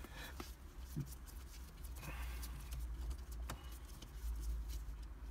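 Scattered light clicks and small knocks of a screw being undone and parts handled at a car's ignition key cylinder, over a low steady rumble. A short scraping sound comes about two seconds in, and a sharper click near three and a half seconds.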